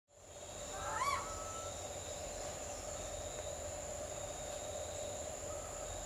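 Asian koel giving one short call about a second in, its note rising and then falling. A steady high-pitched drone runs underneath.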